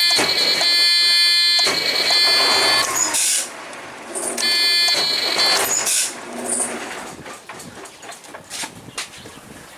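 Truck starter motor bumped in two bursts, a steady high-pitched whine lasting about three seconds and then about one second, as the starter is tested after its bad ground connections were cleaned.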